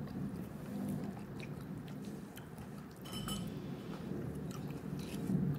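A person chewing a mouthful of salmon poke, with a few light clicks of a plastic fork against a ceramic bowl.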